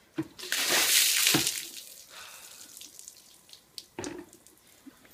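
A bucket of water poured over a man's head, splashing loudly onto him and the paving for about a second, then dripping and trickling away, with a single knock about four seconds in.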